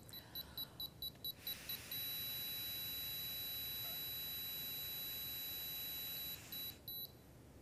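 BACtrack S30 breathalyzer beeping: a run of quick high beeps, then one steady high beep held for about four seconds while breath is blown into the mouthpiece, with a faint rush of breath under it. Two short beeps follow as the sample ends.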